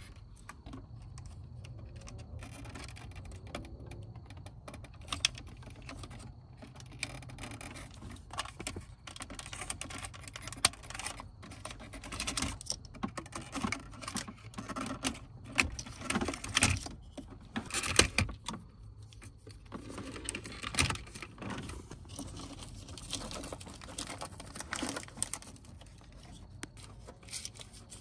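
Irregular plastic clicks and rattles as wiring-harness connectors are unclipped and pulled from behind the climate control panel of a Mercedes-Benz W166 ML350 dashboard, over a low steady hum.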